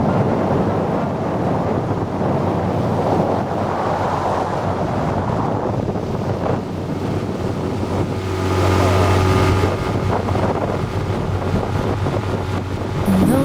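A motor running under heavy wind noise on the microphone, steady throughout with a low hum that strengthens for a couple of seconds after the middle.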